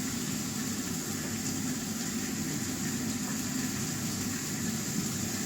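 Steady background hum and hiss with no distinct handling sounds, like room noise from a fan or air conditioner.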